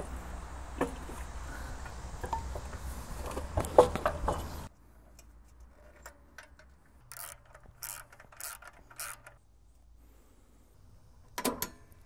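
Light metallic clicks, knocks and scrapes of hand tools and hardware as a small gasoline engine is set onto the sawmill's mount and bolted down, with a sharper knock near the end.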